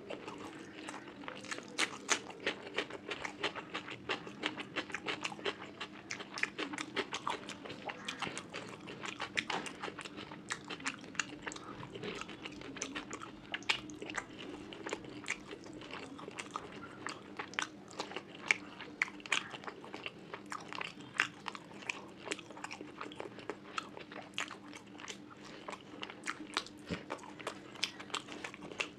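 Close-miked eating sounds of fish curry with rice: steady chewing with many quick, wet clicks and smacks of the mouth.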